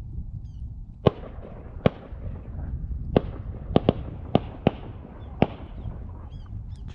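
Shotgun fire while waterfowl hunting: a run of about eight sharp shots in under five seconds, two of them almost back to back, from more than one gun.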